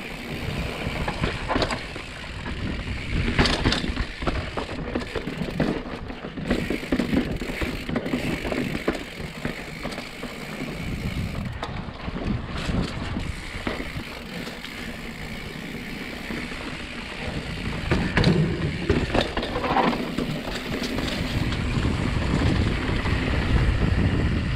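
Specialized Status mountain bike riding fast downhill over rock slab and dirt: continuous tyre rumble with the bike rattling and clattering over bumps, and several harder knocks from bigger hits.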